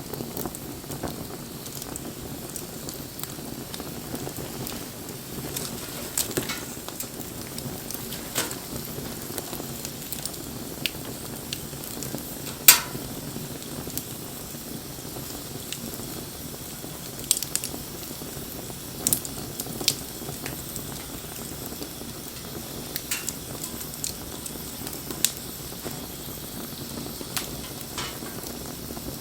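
Wood fire crackling, with scattered sharp pops over a steady hiss; one pop, about halfway through, is much louder than the rest.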